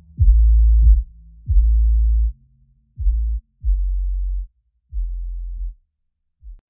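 Background music reduced to deep bass notes, struck one after another and growing quieter until they stop near the end.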